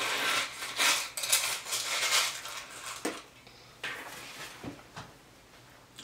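Plastic spoon scraping and scooping crushed ice in a plastic tub, with a few short sharp clicks in the second half.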